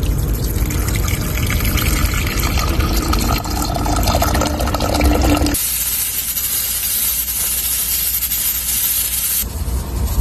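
Water poured into a small pot of hotpot on a camping stove. About five and a half seconds in, a loud steady hiss of steam venting from the pot's pressure-cooker valve begins, and it cuts off shortly before the end.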